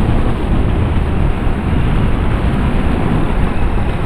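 Steady rush of wind and road noise from a motorcycle cruising at highway speed, with wind buffeting the microphone.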